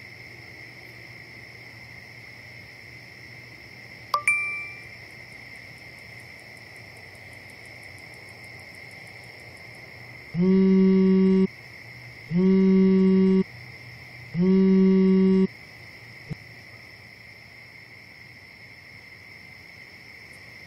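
A mobile phone on a bed vibrating in three buzzes of about a second each, two seconds apart, after a single bright notification ding about four seconds in. Crickets chirr steadily in the background throughout.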